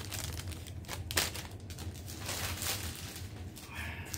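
Clear plastic packaging crinkling and rustling as it is handled, with a few sharp crackles.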